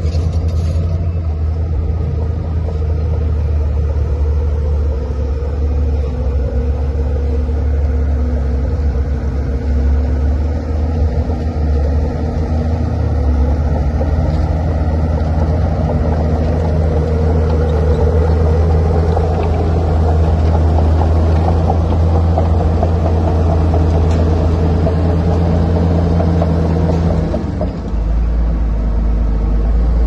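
Komatsu D41P crawler bulldozer's diesel engine running steadily as the machine works, its note dropping lower near the end.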